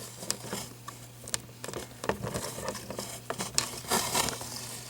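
Scattered small clicks and rustles, like hands handling an object, over a steady low hum.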